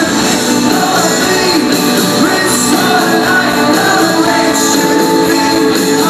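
Rock band playing a song live through the hall's sound system, heard from among the crowd: a full band with drums, a steady and loud mix.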